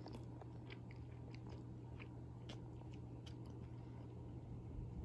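Quiet room with a low steady hum and a scattering of faint small clicks and rustles.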